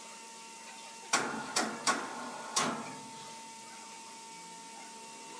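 Four sharp knocks in quick succession, starting about a second in, over a steady sawmill machine hum while a large timber block is shifted into place on the saw carriage.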